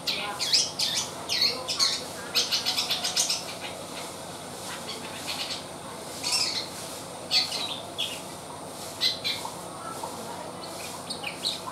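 Young long-tailed shrike, about three months old, calling in short, scratchy bursts with a quick run of repeated notes about two and a half seconds in: a juvenile just beginning to learn its song.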